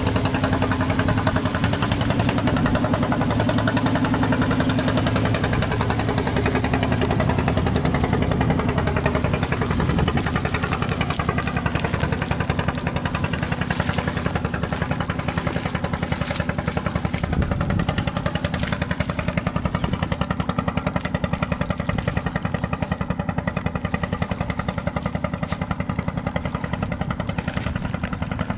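An engine running steadily with a fast, even chug, growing a little quieter toward the end.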